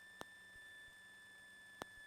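Near silence: a faint steady electronic whine from the aircraft's intercom line, with two short clicks, one just after the start and one near the end.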